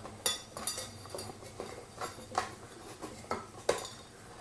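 Scattered light clicks and clinks of small metal and plastic ceiling fan parts being handled while the fan's remote receiver and its wires are fitted on the down rod.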